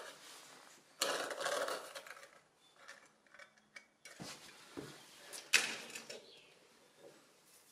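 Plastic construction sheeting rustling as it is handled and laid out on a concrete screed floor, with a few short knocks and clacks midway.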